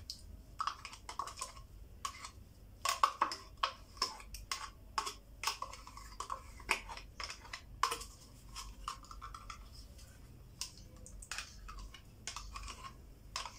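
Metal spoon scraping yogurt out of a plastic cup and tapping it off into a glass bowl: an irregular run of small clicks and taps.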